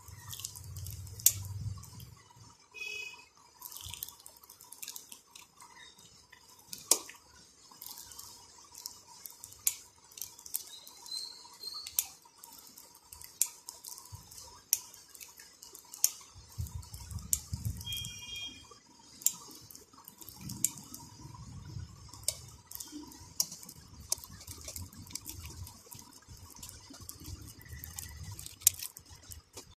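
Relays on an 8-channel relay module clicking as they switch on and off, driven by an Arduino as IR remote buttons are pressed. Sharp single clicks come at irregular intervals of about half a second to a second and a half, with low rumbling now and then.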